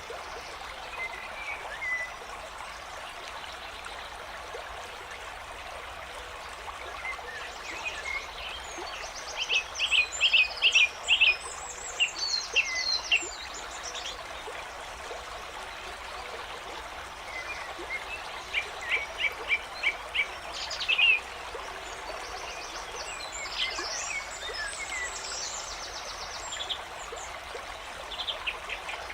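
Forest nature soundscape: a stream runs steadily while birds sing. Twice a bird gives a loud phrase of quick repeated notes, about a third of the way in and again about two-thirds in, with scattered chirps between.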